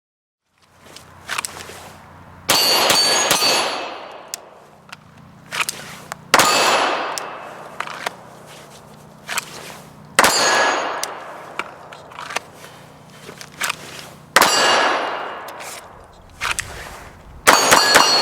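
Five slow, evenly spaced 9mm pistol shots at steel targets: each loud hit makes the steel plate clang and ring for a second or so, and a smaller sharp crack comes a second or so before each ring.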